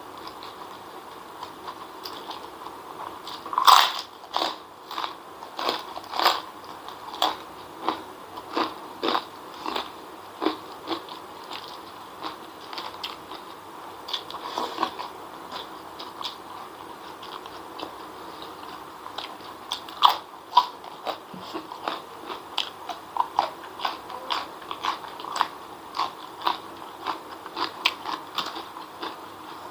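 Close-miked chewing with sharp crunches, coming about two a second in two long runs, the loudest a few seconds in.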